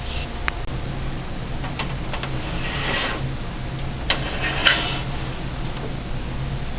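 Scattered clicks and two short bursts of rattling and rustling as small parts are handled, over a steady low background hum.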